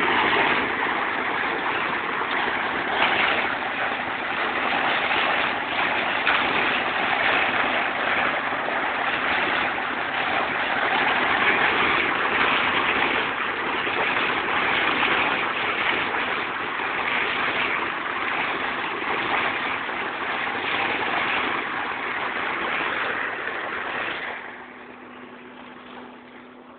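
A steady running noise like a motor, with a constant low hum under it. It drops away sharply about 24 seconds in.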